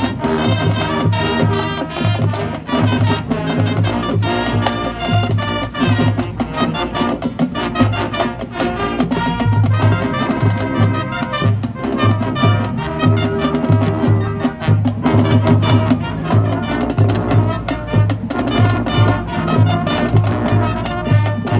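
High school marching band playing its competition field show: brass over a steady, pulsing low drum beat.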